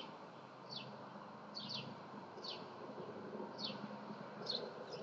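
A small bird chirping: short high notes that fall in pitch, repeated about once or twice a second, over a faint steady background hum.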